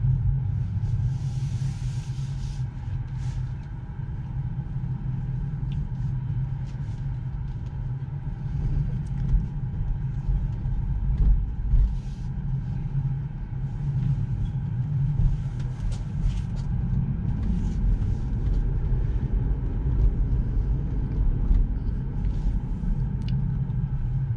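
Low, steady road and tyre rumble inside the cabin of a Tesla Model 3 electric car on the move, with a few faint clicks.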